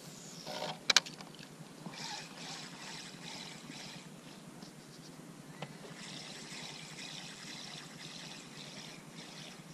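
Water lapping and trickling gently around a small boat, with two sharp clicks about a second in.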